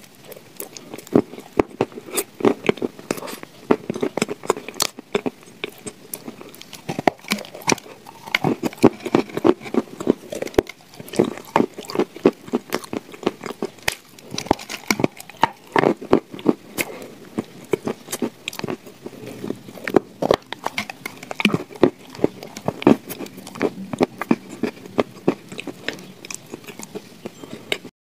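A person biting and chewing crumbly shortbread cookies with chocolate paste: dense, irregular crunching and crackling clicks.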